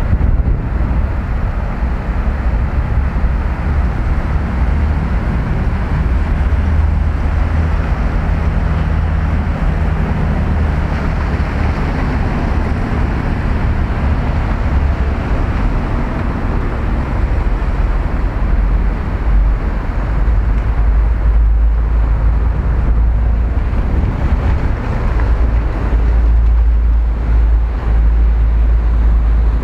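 Wind buffeting the microphone: a steady, loud, low rumble with a rushing hiss above it.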